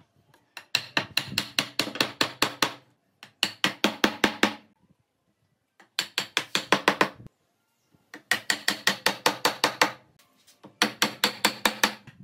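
Rapid, evenly spaced mechanical clicking like a ratchet, coming in five bursts of one to two seconds each with short pauses between them.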